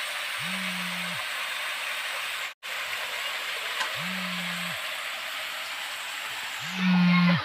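Steady hiss of vegetables frying in a wok over a gas burner, breaking off for a moment a little over two seconds in. A low humming buzz, under a second long, comes and goes three times, loudest near the end.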